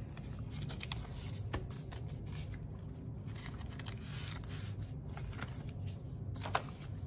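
Paper banknotes and the plastic envelopes and pages of a cash budget binder being handled, with scattered soft rustles and crinkles and one sharper click near the end, over a low steady hum.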